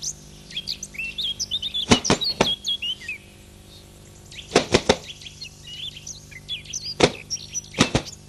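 Small birds chirping all through, broken by groups of sharp smacking impacts: three quick ones about two seconds in, three more near the middle, a single one about seven seconds in and two close together near the end.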